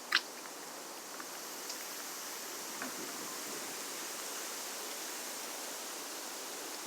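Steady rushing background noise. A single sharp click comes just after the start, and a few faint ticks follow later.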